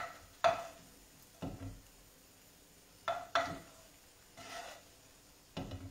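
A cooking utensil knocking and scraping against a frying pan, about six or seven separate irregular clacks, as asparagus tips and prawns are scooped out of it.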